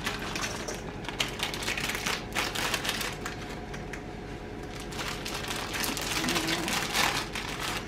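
Irregular light clicks, taps and rustling as sticky dark muscovado sugar is broken off in chunks and dropped into a bowl being weighed.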